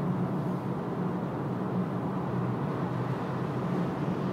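Steady road noise inside a car's cabin while driving at motorway speed.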